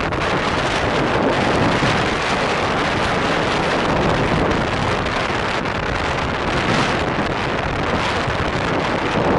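Strong wind blowing across the microphone, a loud, steady rushing noise.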